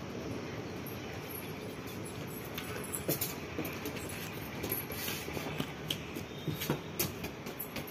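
Scattered light taps and thuds over a steady background hiss, more of them from about three seconds in: a toddler's bare feet on a concrete floor and kicks of a small plastic ball.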